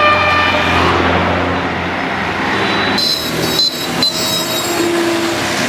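Busy street traffic: engines of passing buses and cars. A vehicle horn sounds through the first second, and high-pitched tones come and go about three to four seconds in.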